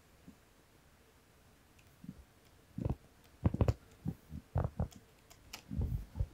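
Pen stylus tapping and scraping on a drawing tablet as lines and letters are drawn: quiet at first, then a run of short clicks and knocks from about halfway in.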